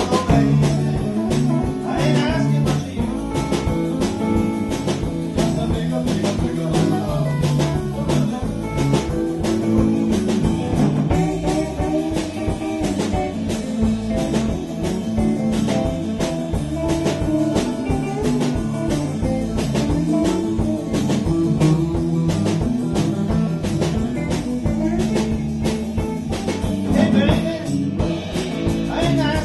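Live band playing rock and roll, with guitar over a steady drum beat.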